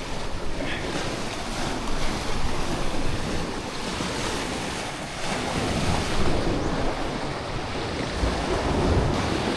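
Sea surf washing in and out over a rocky shore in uneven surges, with wind buffeting the microphone.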